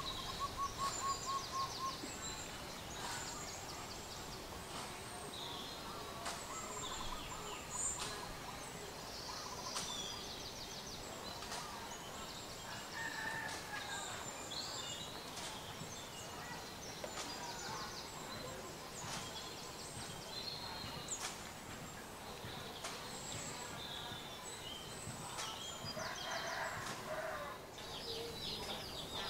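Birds calling outdoors: many short chirps and quick trills from several birds, with a fast run of repeated notes about a second in.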